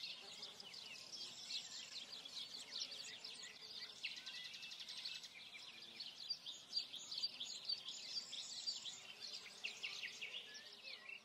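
A dense chorus of many small birds chirping and twittering, short high chirps overlapping without pause.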